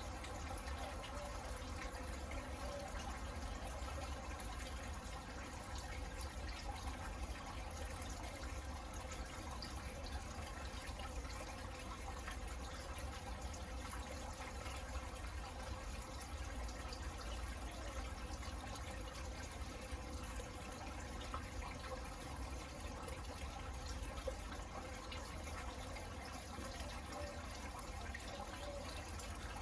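Steady rain falling, an even, unbroken wash of water sound.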